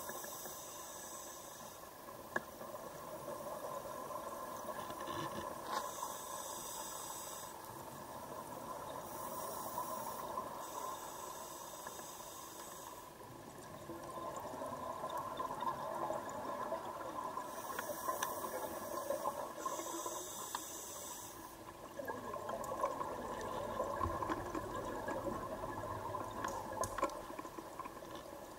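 Scuba diver breathing through a regulator underwater: hissing breaths with bubbles in bursts of a second or two, a few seconds apart, over a steady watery rush.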